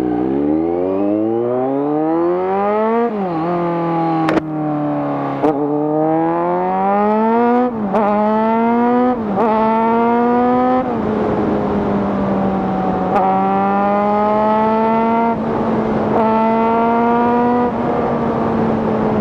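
Kawasaki Z900 inline-four with a de-catted SC Project full-system exhaust accelerating hard through the gears. The pitch climbs and drops back at each of several quick upshifts, with a few sharp cracks among them. From about eleven seconds in it holds a steady high-revving note at speed, with small rises and dips.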